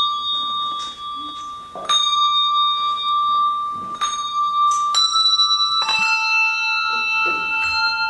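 Handbells rung by a children's bell choir: one note struck about every two seconds and left ringing, then a higher bell about five seconds in and a lower bell about six seconds in, the notes overlapping as they ring on.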